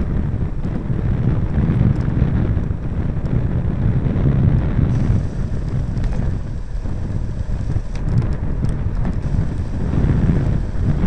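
Wind buffeting the microphone of a handlebar-mounted camera on a fast bicycle descent: a steady, fluttering low rumble.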